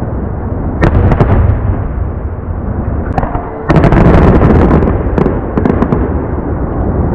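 Aerial fireworks bursting over a steady low rumble of booms: a few sharp cracks about a second in, then a sudden loud boom about halfway through, followed by a spray of crackling.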